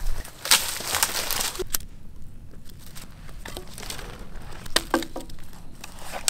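Dry brush crunching early on, then a wood campfire crackling with scattered sharp pops.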